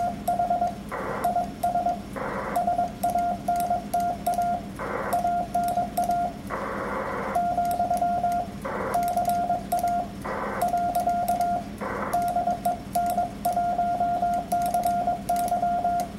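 Morse code (CW) sidetone from a ham transceiver being keyed at about 22 words per minute: a single steady beep in quick dots and dashes, with short bursts of hiss in the gaps between groups and a low hum underneath.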